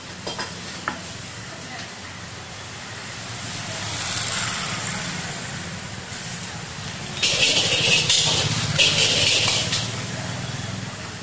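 Noodles sizzling in a hot wok over a gas burner, with a few light clicks about a second in. The hiss swells briefly near the middle, and a louder spell of hissing lasts a couple of seconds in the second half.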